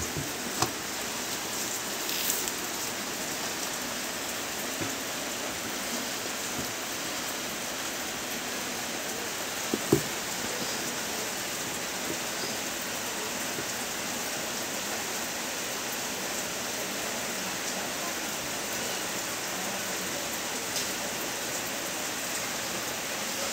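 A steady, even hiss like rain, with a few light clicks and a sharper knock about ten seconds in.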